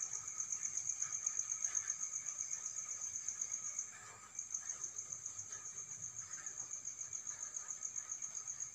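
Cricket chirping: a high, fast, even pulse that breaks off for about half a second near the middle, then resumes.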